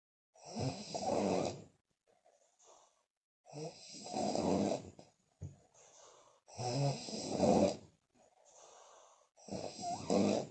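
A woman snoring loudly: four heavy snores about three seconds apart, each followed by a softer exhale puffing through the lips.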